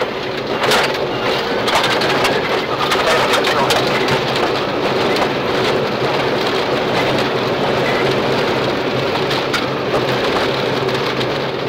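Subaru Impreza rally car heard from inside the cabin at speed on gravel: the engine holds steady revs under a constant hiss and patter of gravel and stones thrown against the underbody and wheel arches.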